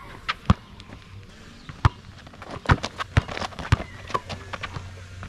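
Basketball bouncing on a court amid players' footsteps: a run of sharp, irregular thuds, several to a second in the middle of the stretch.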